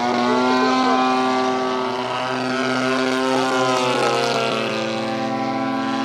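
DLE-30 single-cylinder two-stroke gasoline engines of radio-controlled Sbach aerobatic planes in flight: a steady buzzing engine note, with a second engine's note sliding up and down across it in the middle.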